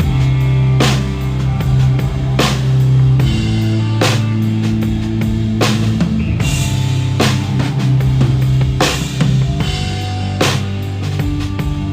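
Live band playing a song, with the drum kit loud in the mix: kick, snare and cymbals, with heavy accents about every second and a half. Sustained low bass notes change under it every second or two, with other pitched instruments in the middle.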